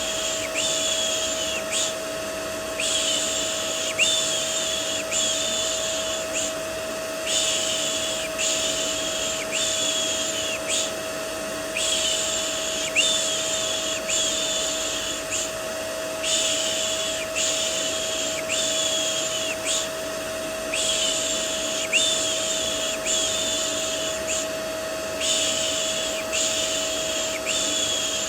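Rhythmic 'shh' shushing for soothing a baby, about one shush a second in runs broken by short pauses. It sits over the steady drone of a vacuum cleaner with a constant motor hum.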